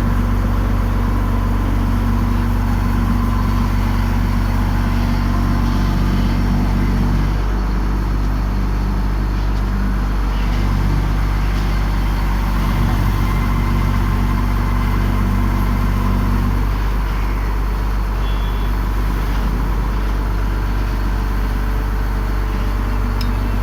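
Engine of a GD45 horizontal directional drilling machine running steadily. Its note shifts about a third of the way in and again about two-thirds in.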